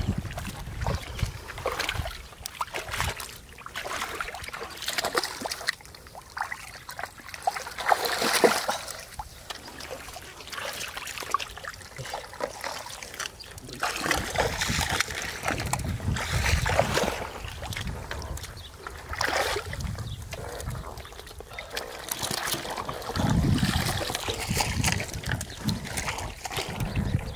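Shallow muddy water splashing and sloshing as a plastic mesh basket is swept and dragged through it to scoop up fish, in repeated uneven strokes with water streaming off the basket.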